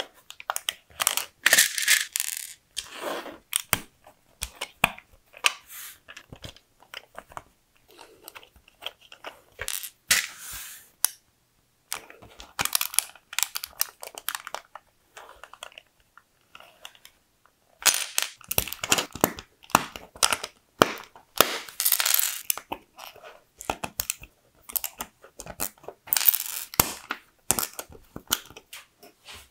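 LEGO bricks and Technic gears, axles and beams being handled and pressed together by hand: quick, sharp plastic clicks and light rattles in dense clusters, with a short pause a little past halfway.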